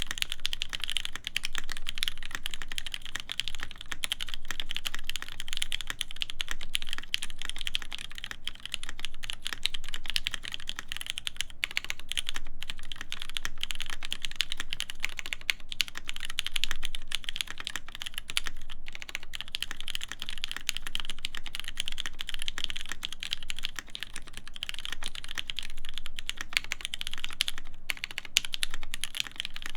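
Continuous typing on a custom mechanical keyboard: a steady stream of keystrokes from lubed vintage Cherry MX Black linear switches on a forged carbon plate, with GMK doubleshot keycaps.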